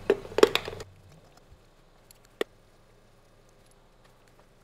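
Spark plug socket on an extension clicking and rattling against metal as spark plugs are threaded in by hand: a quick cluster of clicks in the first second, then one sharp click about two and a half seconds in, with a few faint ticks.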